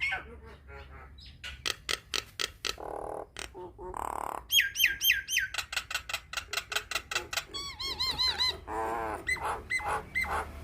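Nias hill myna calling: a rapid mix of sharp clicks, harsh squawks and runs of looping whistled notes.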